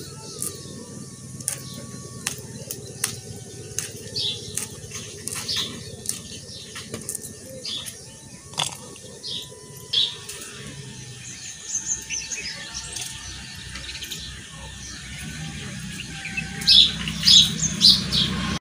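Green chillies being sliced on a vili, an upright floor blade, with the cut pieces dropping into a steel wok in a string of short, sharp clicks. Birds chirp throughout, loudest in a burst of chirps near the end.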